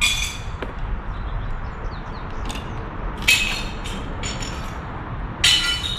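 Window glass being smashed out of its panes: three loud crashes with ringing, tinkling shards, about three seconds and two seconds apart, with smaller clinks between, over a steady low rumble.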